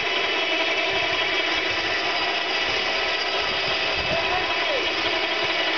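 Motor of a power winch running steadily, hauling a boat on its trailer by the winch cable.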